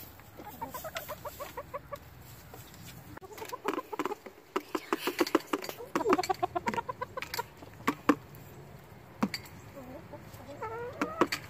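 Hens clucking while pecking at a toy drum kit, their beaks tapping the drumheads in quick, irregular taps that are thickest through the middle. A rising hen call comes near the end.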